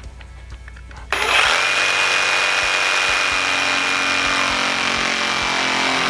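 Jigsaw switched on about a second in, then running steadily at full speed with a thin whine, its reciprocating blade being eased down into wood to start a plunge cut without a drilled starter hole.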